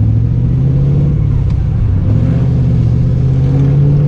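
LS1 V8 of a 2000 Pontiac Trans Am, fitted with aftermarket headers, pulling the car along. Its low drone climbs slowly in pitch as the revs rise.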